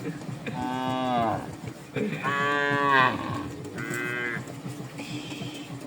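Cows mooing: two long moos, the second the louder, then a shorter, higher call and a faint one near the end.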